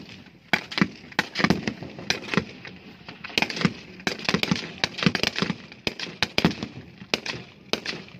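Rifle gunfire from several shooters: many sharp shots in an irregular stream, often in quick pairs and clusters that overlap, with brief lulls between them.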